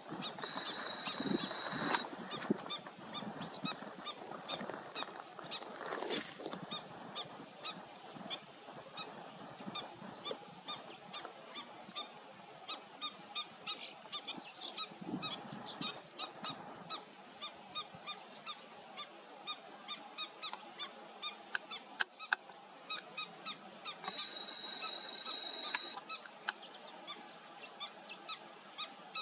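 Water birds calling: a steady string of short, nasal, honk-like calls over a wetland. A thin, steady high whine is heard for about two seconds at the start and again near the end.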